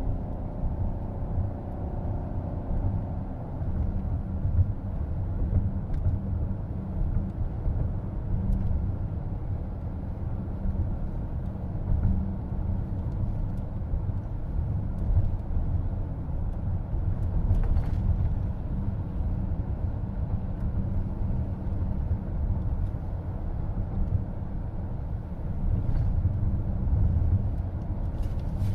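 Steady low rumble of road and tyre noise inside a moving car's cabin.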